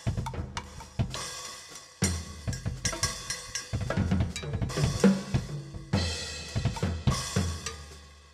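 Acoustic drum kit with Sabian cymbals played with sticks: rapid snare, tom and bass-drum strokes under a cymbal crash about once a second. The playing stops near the end and the cymbals ring out.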